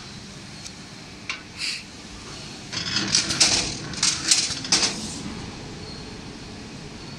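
A couple of light knocks, then a cluster of sharp clatters and scrapes about three to five seconds in, as grey board and small metal-fitted positioning plates are handled on the wooden worktable of a semi-automatic book case making machine.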